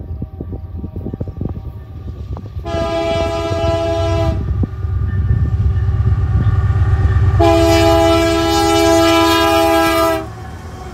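Canadian Pacific GE AC4400CW diesel-electric locomotive approaching and passing, its engine rumble growing louder. It sounds its multi-chime air horn twice: a short blast about three seconds in, then a longer, louder one that cuts off about ten seconds in.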